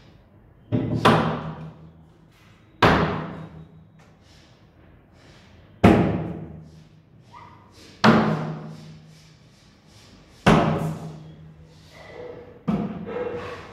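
Wardrobe doors being swung shut one after another: six sharp bangs a couple of seconds apart, each ringing on briefly.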